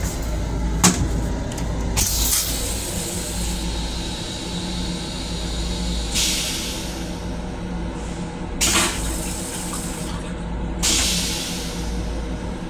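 LIRR M7 railcar toilet flushing: a click, then several hissing sprays of rinse water into the stainless steel bowl, each a second or so long, spread over about ten seconds. A steady low rumble from the railcar runs underneath.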